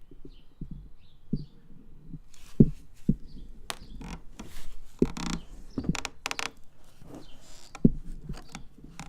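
Thumps and knocks of things being handled and set down, with a few short hissing noises in the middle; the loudest thumps come about two and a half seconds in and again near the end.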